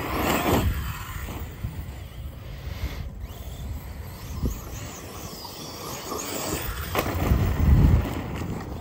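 Arrma Fireteam 6S brushless RC car driving at speed across a gravelly parking lot and grass, its electric motor whining and its tyres rolling over the gravel. Underneath is a steady low rumble that swells a little before the end, with a sharp click about seven seconds in.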